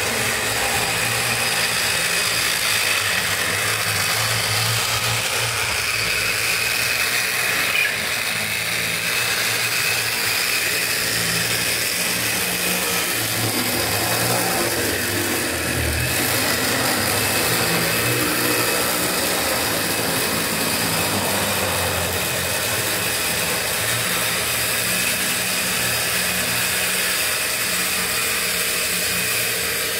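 Model BB305 diesel locomotive running on the layout, a steady engine-like hum with the motor's whir and a faint hiss above it.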